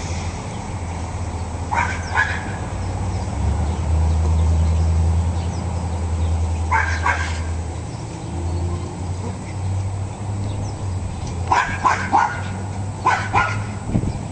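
Cairn terrier barking in four short clusters of two to four barks, a few seconds apart, over a steady low rumble.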